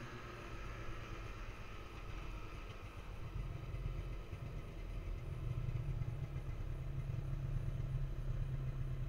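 Snowmobile engine running as the machine rides through powder snow, its low drone growing louder about halfway through.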